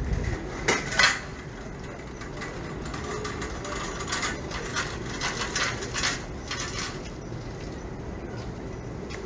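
Clatter of dishes and metal utensils: two loud clinking knocks about a second in, then a run of quick clinks and clatter in the middle.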